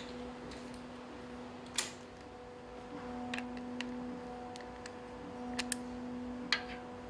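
A steady humming drone at several pitches, swelling slightly now and then, with several short sharp clicks scattered through it; the loudest clicks come near 2 seconds in and twice in quick succession later on.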